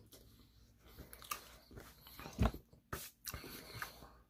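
Close-up eating of Korean fried chicken: biting and chewing with wet mouth sounds and a few crisp clicks, and a low thump about halfway through.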